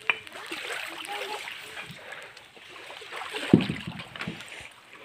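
Shallow seawater splashing and lapping as children wade through it, with faint voices and one sharp thump about three and a half seconds in.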